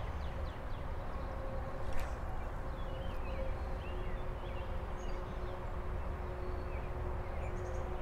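Songbirds chirping and singing in many short, quick downward notes over a steady low rumble. A single sharp click sounds about two seconds in.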